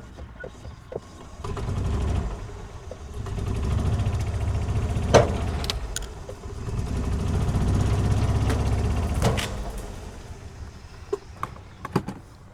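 Golf cart pulling in three surges against a rope tied to a hanging broken tree limb, with a sharp snap about five seconds in and a few knocks and clicks near the end: the rope straining and breaking under the pull.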